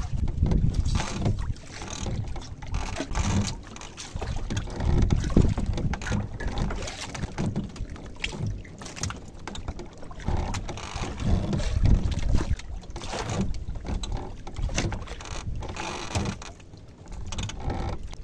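Wind buffeting the microphone over water sloshing against a small boat's hull, an uneven low rumble that swells and fades, with scattered sharp clicks and knocks.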